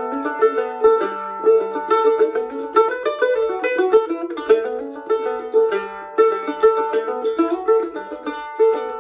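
Instrumental music on a plucked string instrument: quickly picked notes over a steadily repeated drone pitch.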